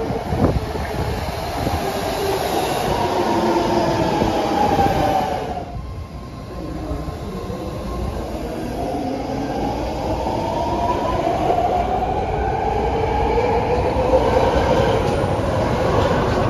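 BART train of legacy cars, its motor whine falling in pitch as it brakes into the station, over wheel and rail rumble. After a brief drop about six seconds in, the whine rises steadily in pitch as a train accelerates away.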